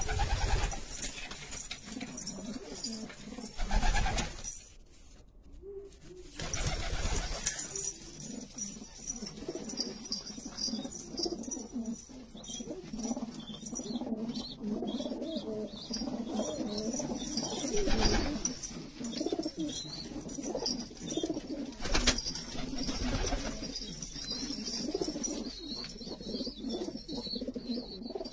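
A flock of domestic pigeons cooing continuously in a low, overlapping murmur. Several brief louder rustles break in, about four, eighteen and twenty-two seconds in.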